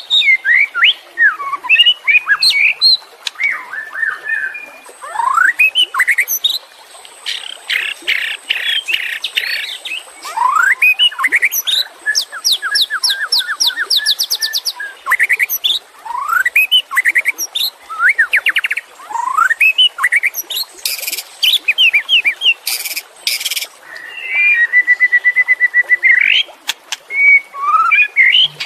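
White-rumped shama (murai batu) singing a long, varied song: rising whistles, rapid trills and harsh rattling notes in quick phrases with short pauses between them.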